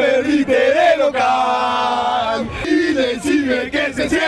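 A small group of male football fans singing a chant together, loud and raucous, the pitch sliding up and down with the tune.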